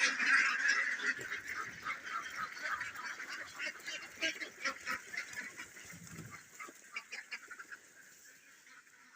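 A flock of ducks quacking all together in a dense clamour, loud at first and fading steadily until only faint, scattered calls remain near the end.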